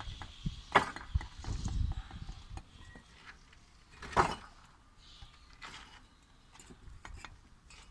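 Irregular knocks and clatter, two sharp ones louder than the rest (about a second in and about four seconds in), over a low rumble that dies away after about two seconds.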